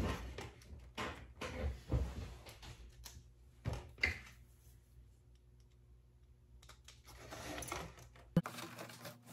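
Scattered light clicks and taps of parts being handled and fitted during assembly, over a low background hum that cuts off suddenly near the end.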